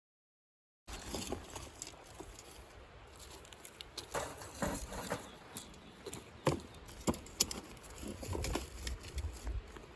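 Irregular light knocks and clicks, a few sharper ones in the second half, over a faint background hiss, after a second of dead silence at the start.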